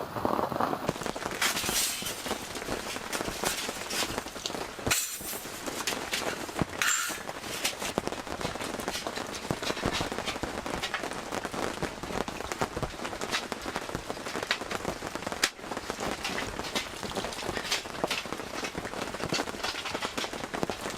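Heavy rain falling on an all-cotton canvas tent: a dense, irregular patter of drops that goes on steadily. Two brief louder noises come about five and seven seconds in.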